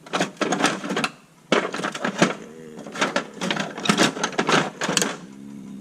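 Hand tools clattering and clicking in quick, irregular succession as a toolbox is rummaged for a screwdriver.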